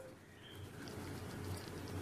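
Persian kitten purring faintly as it is stroked under the chin: a low, pulsing rumble that builds up within the first half second, with a few faint ticks over it.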